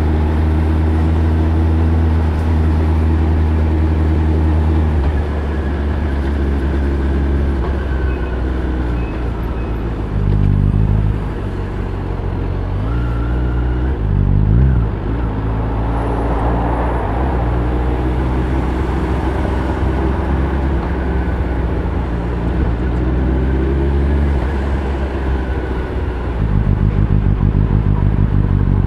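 Kawasaki ZX-10R's inline-four engine running at low revs under gentle throttle, as it is kept during engine break-in. The pitch dips and rises a few times midway as the bike slows and picks up. Near the end it gets louder, with a quick, even throb.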